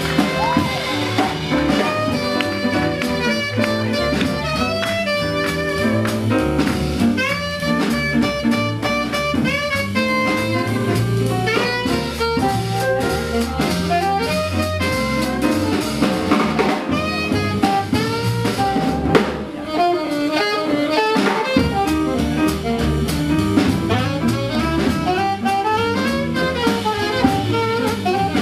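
Live small swing jazz band playing, with saxophone lead over upright bass and drum kit. About twenty seconds in, the bass end drops out for a couple of seconds before the band comes back in.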